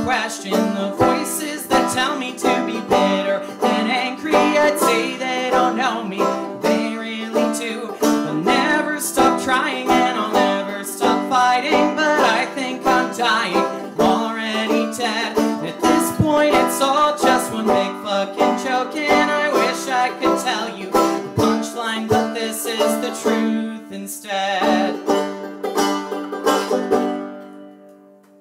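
Banjo played in a run of quick plucked notes, ending on a final chord that rings and fades out near the end.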